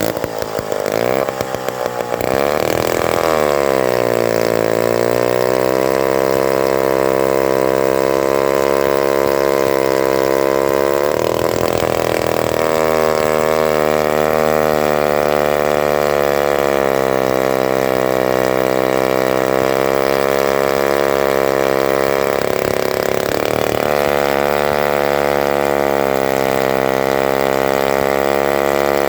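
Lombard Governor 3-1/2D chainsaw's AH47 two-stroke engine running hard while cutting through a pine log. Its pitch sags as it bogs down into the cut about two seconds in, then holds steady under load, with two brief unsteady moments along the way.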